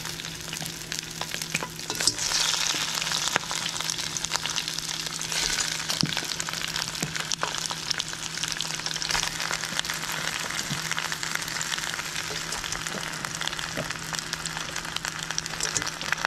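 Raw head-on shrimp frying in hot olive oil in a stainless steel pot, a steady crackling sizzle that grows louder about two seconds in as more shrimp go into the oil.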